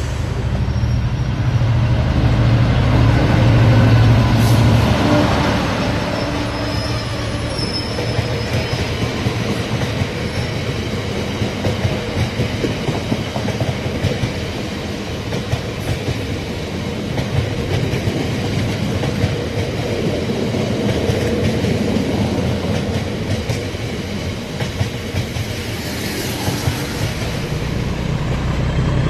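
OO gauge model diesel locomotive hauling a rake of car-carrier wagons past, with a low drone loudest about four seconds in, then a steady rolling clatter of wheels over the track.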